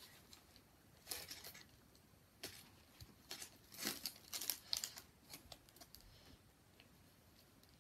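Faint crinkling of a small plastic bag being handled, in short scattered bursts over several seconds.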